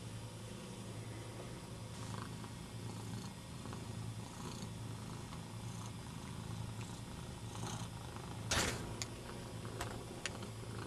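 Domestic cat purring steadily, a low pulsing rumble. About eight and a half seconds in there is a brief burst of noise, the loudest moment, followed by a few sharp clicks.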